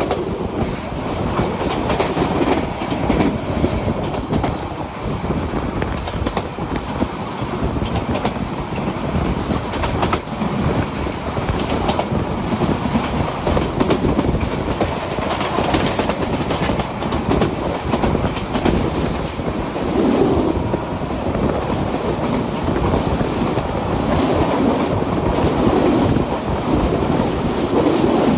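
A Bangladesh Railway train running on the rails: a continuous loud rumble with the wheels clattering over rail joints.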